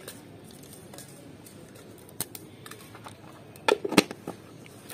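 Hands breaking water lily stems and dried red chillies over a steel bowl: scattered small clicks and snaps, with a quick cluster of sharper snaps about four seconds in.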